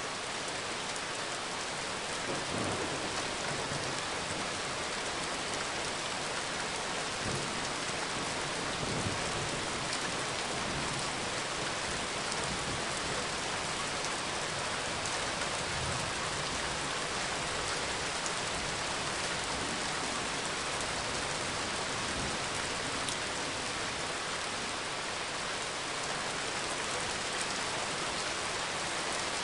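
Steady heavy rain falling and pattering on hard surfaces, with a few low rumbles underneath about 2, 9 and 16 seconds in.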